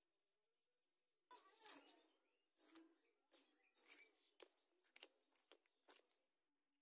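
Fish being scaled against the upright blade of a boti: a run of about ten short rasping scrapes, roughly two a second, starting about a second in, the first one the longest and loudest.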